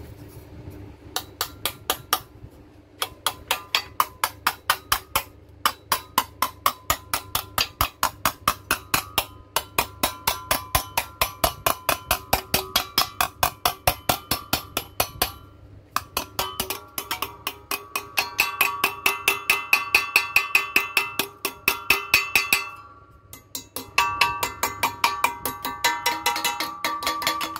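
Hammer strikes on sheet metal laid over angle iron, folding it into a radiused bend. The blows come fast and regular, about four a second, in several runs with brief pauses, and each one leaves a metallic ring.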